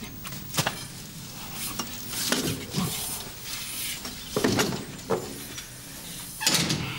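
Rustling, clatter and soft knocks from a manual wheelchair being wheeled into a room, with a door pushed shut near the end, the loudest sound.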